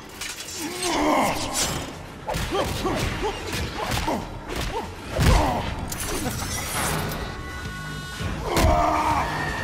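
Movie fight sound mix: repeated heavy thuds and crashes of blows and bodies hitting the set, the loudest about five seconds in, with short shouts and grunts over a dramatic score.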